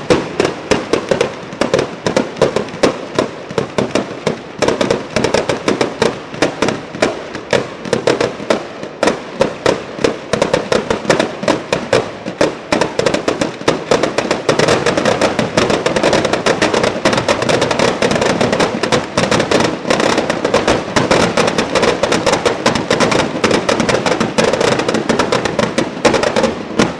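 Barrage of Ligurian mortaletti, ground-fired firecracker charges, going off in rapid succession: many sharp bangs a second. About halfway through they pack so close they merge into an almost continuous din.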